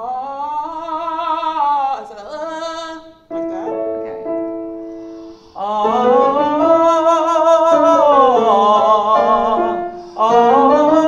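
Classical-style vocal warm-up: a voice singing sustained open vowels in phrases that climb and fall in pitch, with piano chords played between the phrases to set the next pitch. The longest, loudest sung phrase starts about halfway through, and another begins just before the end.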